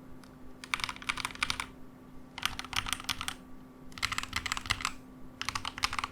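Keydous NJ80 mechanical keyboard with Gateron Pro Yellow linear switches on a steel plate being typed on, heard in four quick bursts of rapid keystrokes, each about a second long, with short pauses between.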